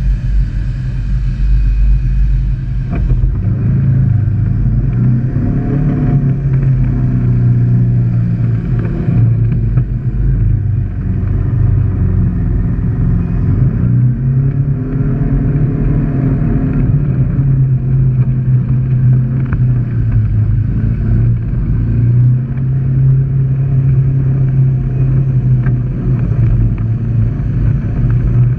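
Side-by-side UTV engine running at trail speed, revving up and easing off in slow swells as it climbs a rough dirt track, with a few faint knocks over the bumps.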